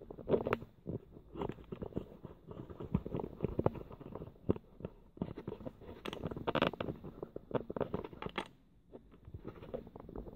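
Irregular small clicks, taps and scrapes from a Yale rim cylinder lock and tools being handled while it is taken apart. The clicks are busiest for most of the stretch and thin out near the end.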